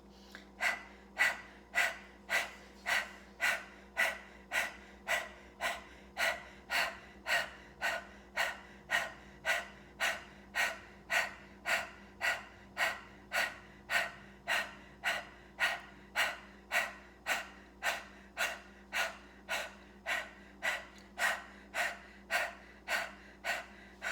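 Rapid rhythmic panting 'dog breath' of the Kundalini yoga breathing exercise: a woman's sharp, even breaths in and out, about one every two-thirds of a second, kept up at a steady pace.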